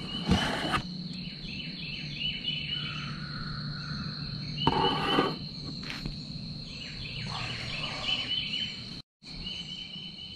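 Early-morning outdoor ambience: a steady high-pitched insect drone with repeated bird chirps over it, and two brief rustles, one just after the start and one about five seconds in. The sound cuts out for a moment near the end.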